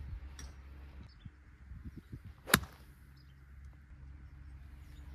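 A single sharp crack of a golf club striking a ball, about two and a half seconds in, during warm-up shots on the driving range.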